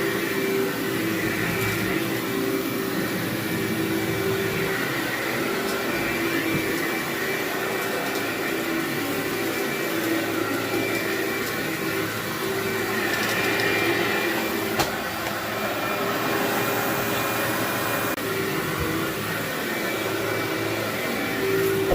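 Vacuum cleaner running steadily as it is pushed over carpet, with a steady hum and a few faint clicks, and one sharp tick about fifteen seconds in.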